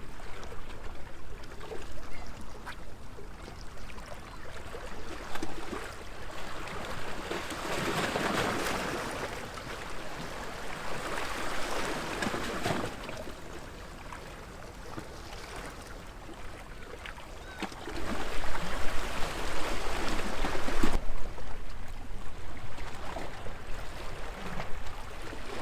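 Small waves washing and lapping against a stone seawall, swelling and ebbing every few seconds. A louder low rumble comes about two-thirds of the way through.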